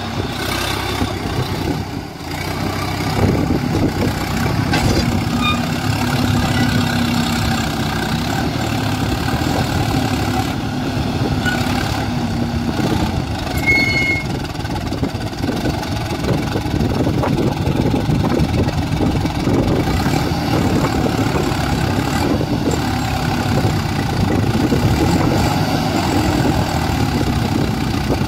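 Swaraj 744 XT tractor's diesel engine running hard under load as its rear wheels spin in deep sand. It dips briefly about two seconds in, then picks up again and holds steady.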